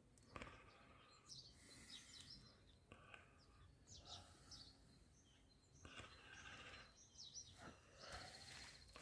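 Near silence with faint, scattered bird chirps in the background.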